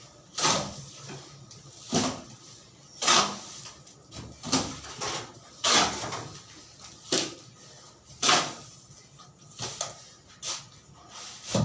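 An uneven series of short scraping knocks from hand-tool work, about one every second.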